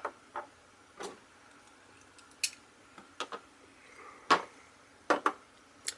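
Irregular sharp clicks and knocks of hard plastic Beyblade Burst tops and parts being handled and set down, about ten in all, the loudest about four seconds in.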